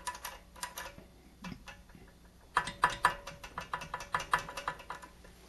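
Light, irregular clicks and taps of metal parts: the throttle arm and linkage on a Predator 212 engine being worked against its stops, with a quicker run of clicks from about halfway in.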